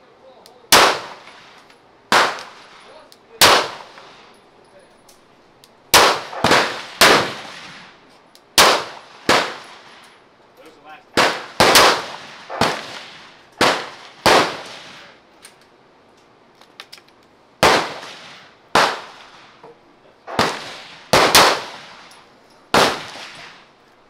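Semi-automatic handgun firing single shots, about twenty in all, mostly in quick pairs and threes about half a second apart, with a pause of nearly three seconds about two-thirds through. Each shot trails off in a brief echo.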